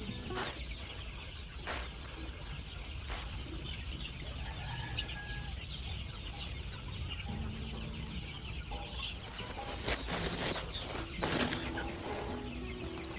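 Free-range chickens clucking in short runs of low calls, with two brief louder noisy bursts near the end.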